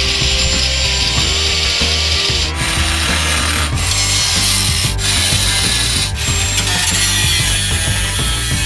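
Angle grinder with a cutoff wheel cutting through the sheet-steel bed floor of a truck: a loud, steady, hissing grind with a few brief breaks.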